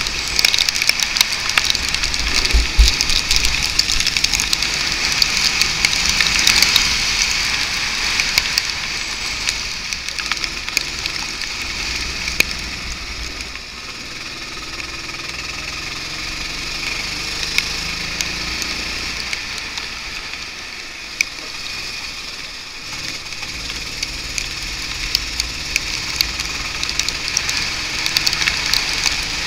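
Go-kart running on a wet track, heard from an onboard camera: a steady rush of wind and tyre spray full of crackling drops, with the kart's engine faintly rising and falling in pitch as it speeds up and slows for the corners.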